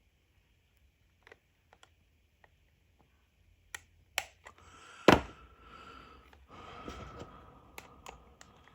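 Small parts being handled on a workbench: scattered light clicks and taps, one loud sharp click about five seconds in, then a few seconds of scraping and rubbing, with more clicks near the end.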